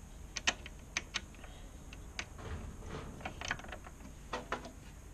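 Irregular small clicks and taps of metal on metal as the small retaining screws are fitted by hand onto the drive-roll gear carriers of a MIG welder's wire feeder.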